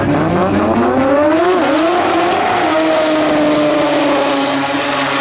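Drag racing car accelerating hard off the line: engine pitch climbs, dips briefly at a gear change about one and a half seconds in, climbs again, then slowly falls as the car pulls away.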